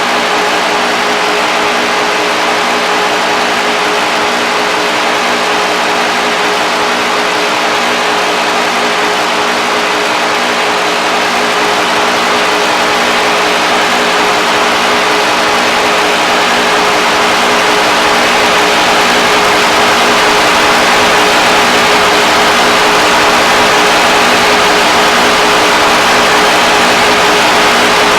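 Static noise drone from a guitar-pedal chain: a dense hiss with several steady low tones held underneath, growing slowly louder.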